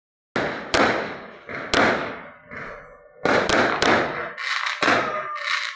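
Fireworks going off: a quick irregular series of bangs and sharp cracks, each with an echoing tail, some overlapping.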